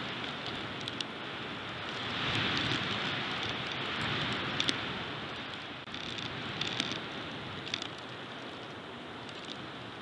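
Strong wind gusting through pines and over the nest-cam microphone: a steady hiss that swells to its loudest about two to four seconds in, with a few sharp clicks and crackles.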